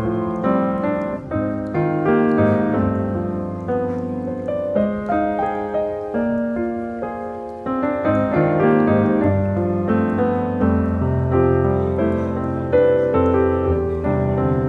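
Background music: a piano playing a continuous melody of single notes and chords.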